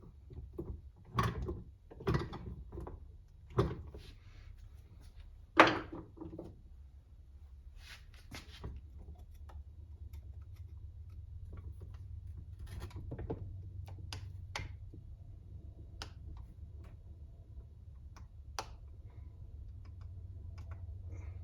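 Hand tools being handled at a workbench: a run of sharp clicks and knocks, the loudest about five and a half seconds in, then scattered light ticks over a low steady hum.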